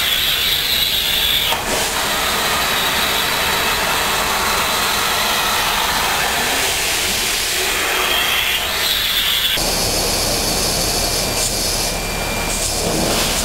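Compressed-air-driven water vacuum running, a loud steady hiss of rushing air. The sound changes abruptly about ten seconds in.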